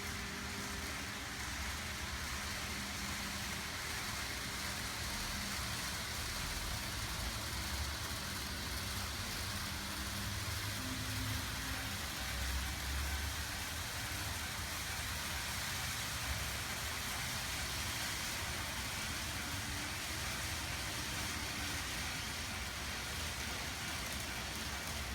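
N-gauge model trains running on a layout track: a steady rolling rush of small wheels on rail with a low motor hum underneath.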